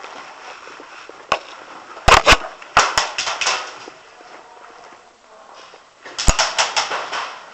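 Airsoft guns firing: a single sharp crack, then two quick strings of cracks, one about two seconds in and another about six seconds in.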